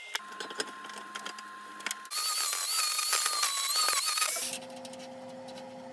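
Angle grinder grinding the edge of a sheet-steel stove box for about two seconds near the middle, a high whine over a loud rasp. Lower steady machine hums and light clicks come before and after it.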